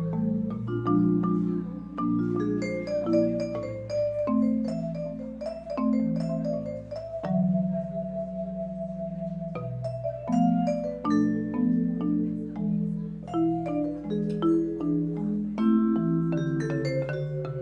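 Instrumental music on mallet percussion, in a vibraphone-like tone: struck notes ringing on over held low chords, with a slow melody above.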